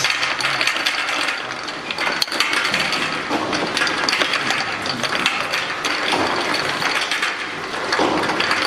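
Automatic bottle unscrambler running: small plastic e-liquid bottles clattering and clicking against one another and the rotating star-wheel turntable as they are sorted into the outfeed lane, a dense continuous rattle.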